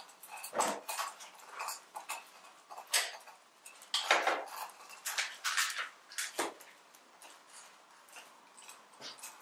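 Clay pots and metal implements clinking and knocking as they are handled on a tabletop: an irregular clatter of sharp strokes, loudest about four seconds in, growing fainter over the last few seconds.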